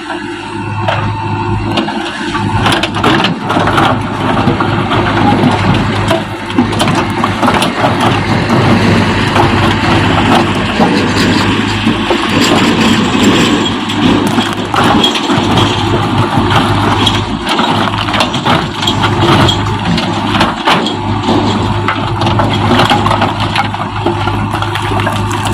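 JCB backhoe loader's diesel engine running steadily under load, with many sharp knocks and crunches as its bucket breaks down a brick wall.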